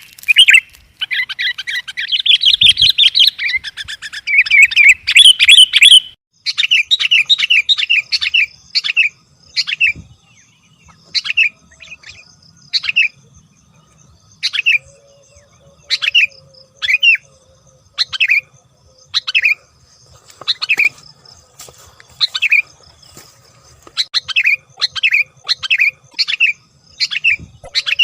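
Sooty-headed bulbul (kutilang) calling: a fast, continuous chattering for about six seconds, then after a short break, separate short call notes repeated in quick runs of several and singly.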